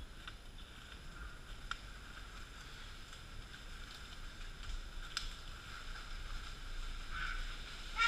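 Rainforest ambience: a steady insect chorus holding several high tones, with a few sharp snaps about two and five seconds in.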